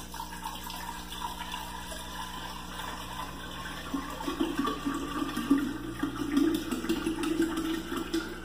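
Water pouring from a plastic gallon jug into a glass jar in a steady splashing stream, growing louder and more uneven from about halfway.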